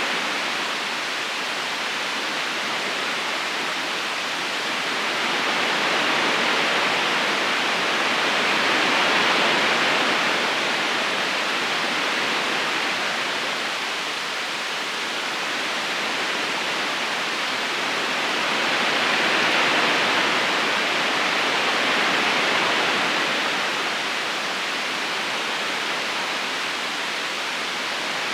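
River water rushing steadily over stones in an even, unbroken hiss, swelling gently and falling back about every ten seconds.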